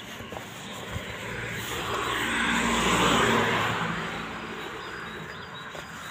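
A car passing on the street alongside: its tyre and engine noise swells to a peak about three seconds in, then fades away.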